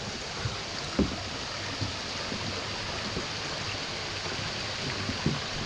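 A creek rushing steadily, with soft, uneven footsteps thudding on a footbridge.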